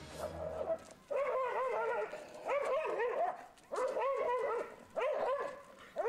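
A reactive dog barking and yelping in quick volleys, about five bursts of several short high barks each, the outburst of a dog reacting on the street.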